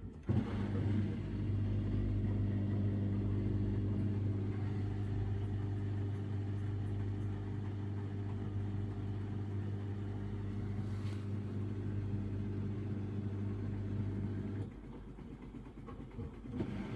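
Samsung Ecobubble washing machine's digital inverter motor turning the drum in a spin with an unbalanced load, a steady hum. About fifteen seconds in, the hum cuts off suddenly and the sound drops to a quieter rumble as the drum slows.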